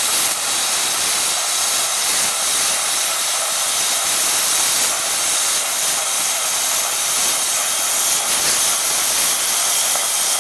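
Tenya Cut50 air plasma cutter cutting metal: a loud, steady hiss of the compressed-air plasma arc at the torch.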